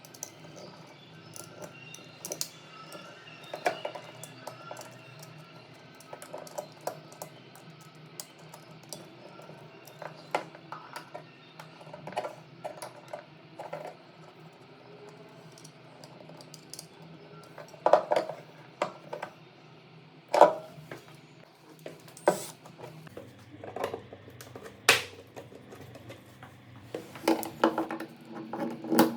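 Quiet background music with scattered sharp clicks and taps from hand work on wall switches and sockets, loudest in a few strikes after the middle and a cluster near the end.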